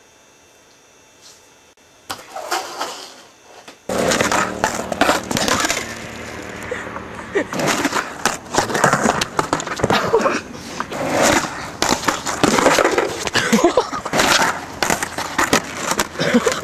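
Quiet room tone, then from about four seconds in a skateboard on concrete: wheels rolling, with sharp clacks and knocks of the board hitting and grinding a ledge.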